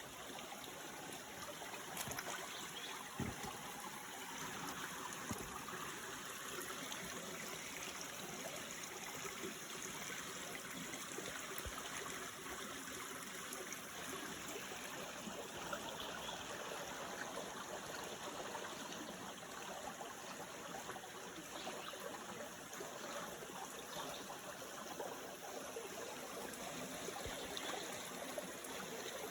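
Steady rushing noise of woodland ambience, with a few faint clicks.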